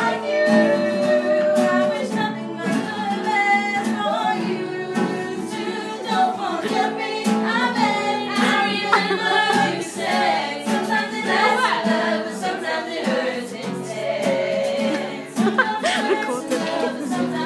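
A group of young voices singing a song together, with acoustic guitar strumming along.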